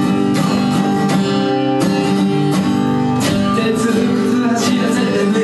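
Recorded music led by strummed acoustic guitar chords, steady and loud.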